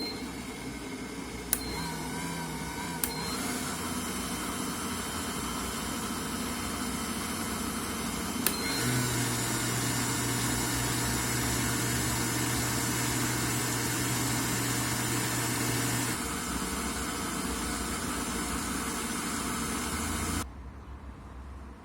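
Yasomi kitchen robot's stand-mixer motor running steadily as it mixes and kneads dough, with a few short beeps near the start and again a third of the way in. It runs louder for a stretch in the middle, then drops back and stops abruptly near the end.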